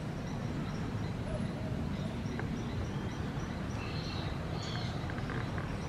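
Faint high-pitched animal chirps over a steady low rumble: a row of short, evenly spaced peeps, then a couple of louder chirps about four seconds in.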